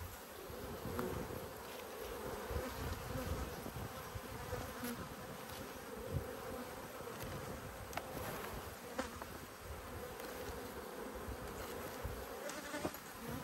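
Honeybees buzzing in a steady hum around an open hive, with a few light clicks and knocks as wooden frames are handled.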